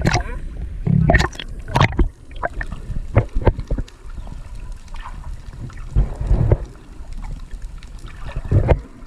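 Water sloshing and gurgling around an underwater camera, with irregular knocks and bumps from handling. Near the end the camera breaks the surface, with splashing.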